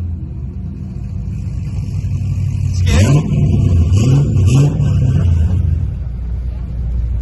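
A car's exhaust rumbling deeply at idle, with three quick throttle blips about three, four and four and a half seconds in, each rev rising and falling back.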